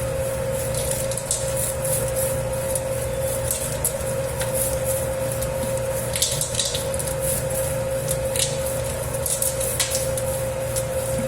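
Dough-kneading machine running steadily with a constant motor hum, working a large batch of pizza dough. Irregular wet slaps and squelches come from the dough against the bowl.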